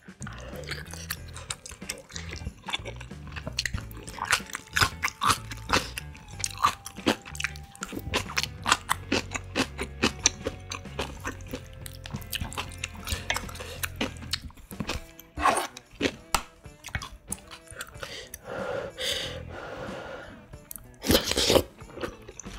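Close-miked eating sounds of spicy ramyun with rice cake and dumplings: wet chewing with many sharp mouth clicks and smacks, and a loud noodle slurp near the end.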